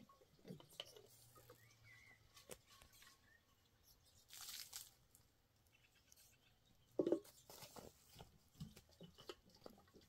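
Feet scuffing and crunching on dry, stony dirt under a rope swing, with a short scrape about four and a half seconds in and a louder scuff about seven seconds in, amid otherwise quiet outdoor air; a faint bird chirp near the start.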